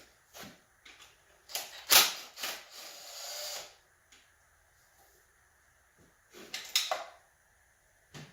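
Scattered metallic clinks and knocks of hand tools, sockets and loose bolts being handled while working on an LS V8 engine's bottom end, with a sharp knock about two seconds in and a rasping noise lasting about a second just after it.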